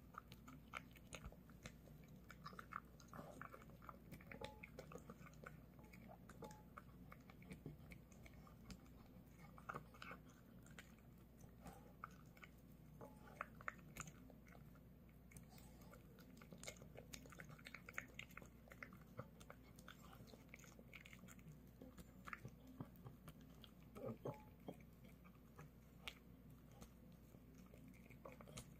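A dog eating: faint, irregular chewing and crunching of pieces of pork and dried pollack, with many short clicks of its mouth at the bowl.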